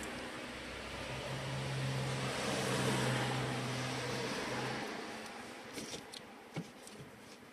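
A motor's steady hum with a rushing noise swells to its loudest about three seconds in and fades away by about five seconds. After it come a few light clicks of electrical wires being handled and twisted.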